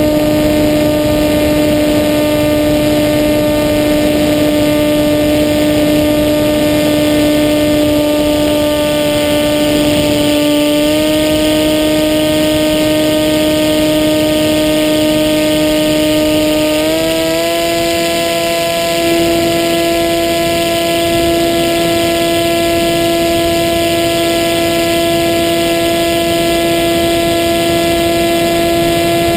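Steady whine of the FPV Maxi Swift's Hacker A30L brushless motor and propeller in flight, heard from the onboard camera over rushing wind. The pitch steps up slightly about a third of the way in and again a little past halfway as the throttle is raised, then holds.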